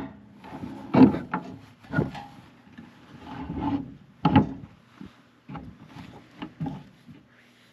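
A folding Fox Landing camper step being swung down and set into place: a few sharp knocks and a scraping rub, loudest about a second in and again just past four seconds. Smaller knocks follow as the step takes a person's weight.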